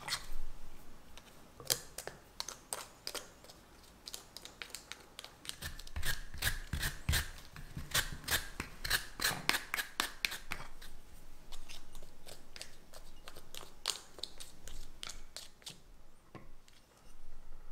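A run of sharp clicks and taps with light scraping, from a handheld plastic lemon zester and small ceramic dishes being handled on a wooden cutting board to clear out grated lemon zest. The taps come thickest about six to ten seconds in and thin out near the end.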